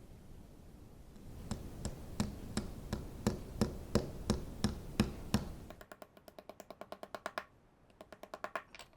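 Small metal toolbox latch parts being tapped and clicked together: a run of light, even taps, about two or three a second. After about six seconds these change to two short runs of faster, ringing metallic ticks.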